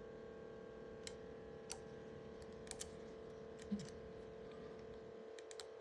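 A few faint, irregular small metal clicks and taps of tools and trigger parts being handled while the new trigger is fitted to the rifle action, over a steady hum.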